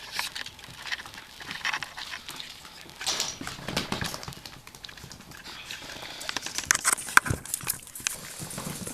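Chihuahua puppies moving about close by: a busy run of small clicks and taps, with a few short squeaks now and then.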